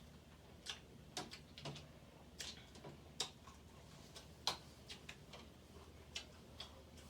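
Close-up eating sounds: irregular sharp clicks and smacks as seafood is chewed and its shells handled, a dozen or more spaced unevenly and faint.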